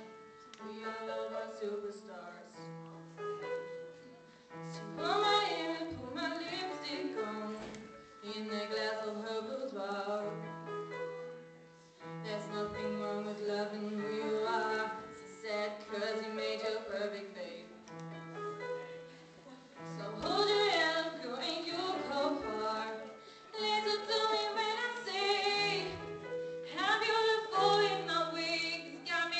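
A young woman singing a pop ballad into a microphone, accompanied by grand piano, with sustained low piano notes under the sung phrases.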